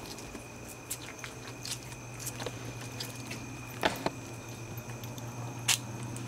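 Scattered light clicks and taps of dogs' claws on a wooden deck, with two sharper clicks about four and six seconds in, over a steady low hum.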